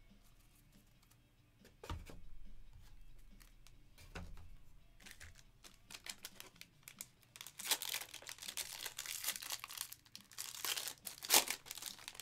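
Foil wrapper of a Topps Series 1 jumbo card pack crinkling and tearing as it is handled and ripped open, dense through the second half. Earlier there are a couple of soft knocks as stacks of cards are set down on the mat.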